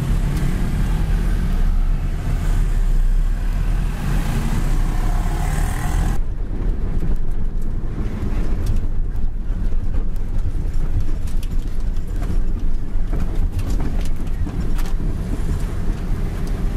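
Mitsubishi Fuso self-loader truck's diesel engine running steadily under way, heard from inside the cab as a low drone. For the first six seconds street traffic noise rides over it. After that the highs drop away and frequent short rattles and knocks sound over the rough dirt road.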